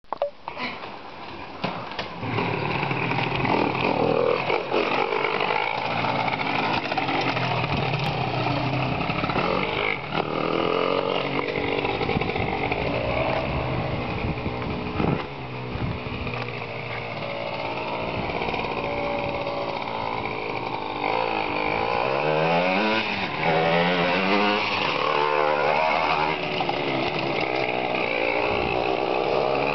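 Aprilia MX's bored-out two-stroke engine (50.25 mm bore on a 44 mm stroke) started and then running and revving up and down as the bike rides off. The owner calls it very badly tuned.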